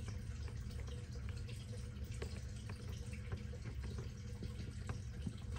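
Faint, scattered light clicks of fingers unscrewing the antenna from a Baofeng UV-5R handheld radio, over a steady low hum.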